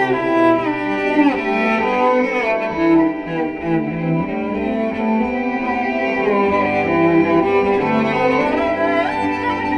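Instrumental music on bowed strings, violin and cello, with long held notes. A melody slides downward about a second in and rises again near the end.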